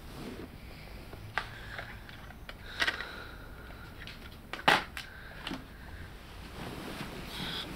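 A handful of sharp clicks and knocks from a small metal alarm clock being grabbed, handled and set back down; the loudest knock comes a little under five seconds in.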